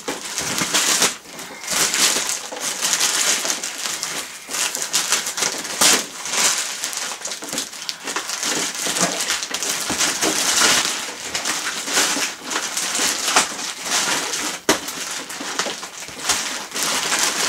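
Black plastic mailing bag rustling and crinkling in the hands, with many sharp crackles, as it is worked open and pulled off a cardboard parcel.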